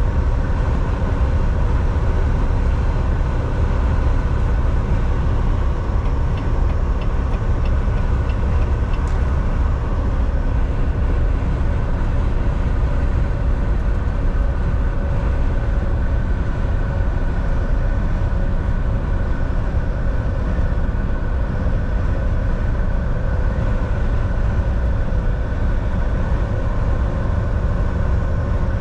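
Volvo semi truck driving at a steady speed: a continuous low rumble of diesel engine and road noise, with faint steady whining tones above it.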